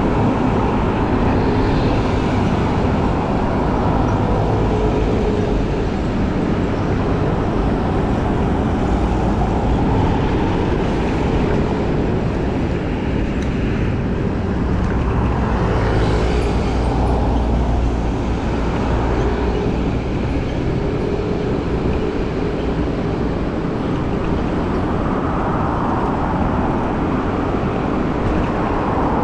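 Busy city road traffic, cars and buses running alongside, heard from a moving electric scooter, under a steady low rumble of wind on the action camera's microphone. A vehicle passes close about halfway through.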